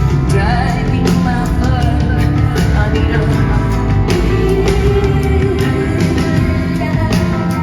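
Live rock band playing, with a woman singing over drums and bass guitar and a steady drum beat.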